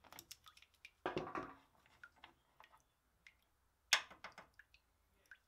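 Scattered faint clicks and light taps of hands and small parts at a car radiator while a new cooling fan switch is fitted in place of the radiator blank, with a sharper click about four seconds in.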